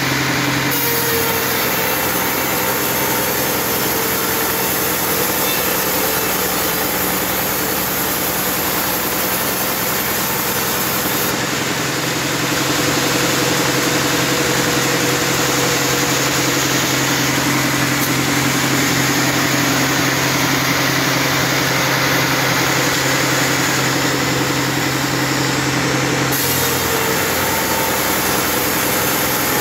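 Large band sawmill running steadily with a constant motor hum, its blade sawing through a teak log; the noise grows slightly louder about halfway through.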